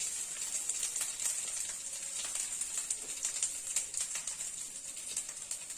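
Turmeric paste frying in ghee, a steady high sizzle, with irregular light clicks and taps of a spoon as food is stirred and mixed.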